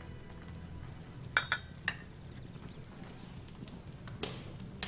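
A small metal utensil clinking against tableware: three quick ringing clinks about a second and a half in, and one more near the end, over a low steady hum.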